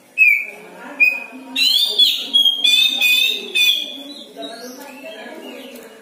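Oriental magpie-robin (kacer) singing: two sharp whistled notes, then a loud run of rapid, warbled whistles lasting about two seconds, trailing off into softer notes, over a low background murmur.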